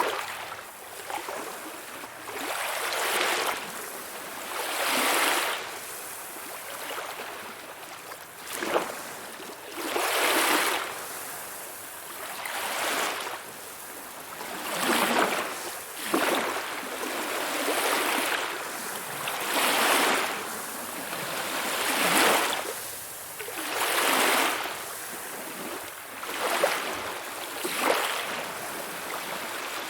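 Calm sea waves washing ashore, a gentle surf that swells and falls back about every two to three seconds.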